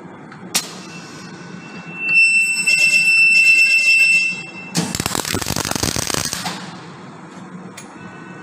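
An electronic beep, a steady high tone, sounds for about two seconds, then a MIG welding arc crackles and hisses for about a second and a half, over the steady hum of the welding cell.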